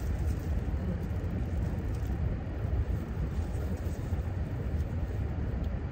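Steady low rumble of car interior noise, heard inside the cabin with the engine running; it holds at an even level throughout.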